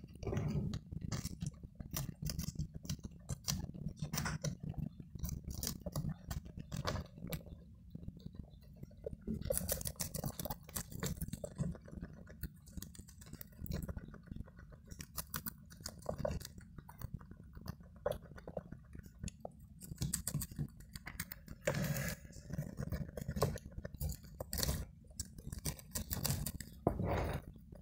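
Guinea pigs chewing crisp lettuce leaves: a fast, continuous run of small crunching bites.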